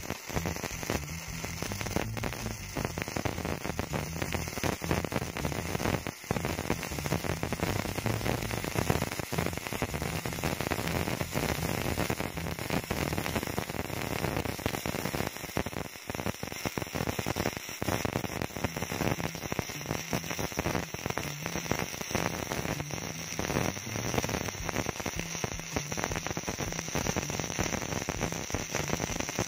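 MIG welding arc crackling steadily as a bead is run, over a low electrical hum, with a few short breaks where the arc stops and restarts.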